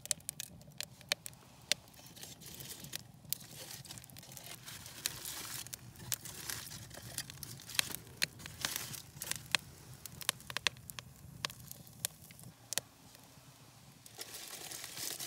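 Wood campfire crackling, with sharp pops and snaps scattered throughout and stretches of hissing. Near the end comes a rustling swell.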